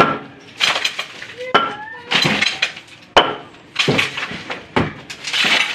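Hand demolition of a plastered masonry wall: about eight hard blows, often in pairs, each followed by crumbling and falling chunks of masonry.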